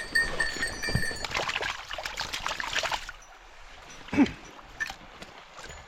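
Water splashing in a quick flurry for a couple of seconds over the steady rush of a mountain stream, then a few isolated knocks.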